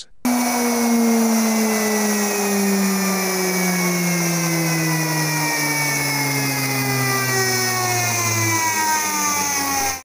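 Washing machine universal motor with carbon brushes running unloaded straight off the mains, spinning very fast: a loud whine over brush hiss that starts suddenly and slowly drops in pitch.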